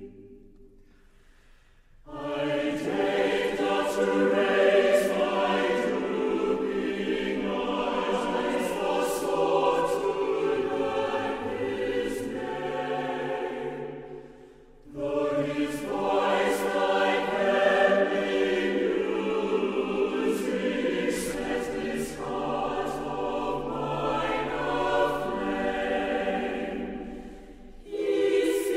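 A choir singing, in long phrases broken by short pauses: one about two seconds in, one about halfway through, and one near the end.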